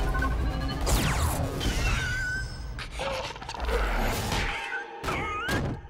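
Animated-series soundtrack of score and sound effects. A long falling sweep comes about a second in, and high wavering, warbling glides follow, with a few sharp hits near the end.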